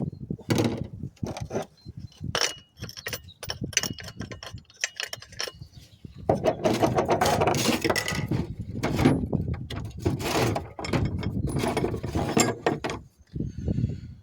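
Metal tools and parts being handled: a run of clicks, clanks and rattles, thickest in the second half.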